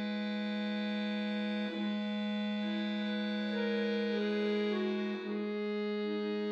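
Chromatic button accordion playing solo: a low note held steadily under a slow line of sustained upper notes, the sound dipping briefly twice.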